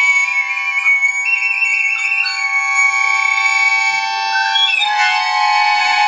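A recorder plays high held notes that step up and down over a button accordion's sustained, dense cluster chord. The accordion chord shifts to new pitches near the end.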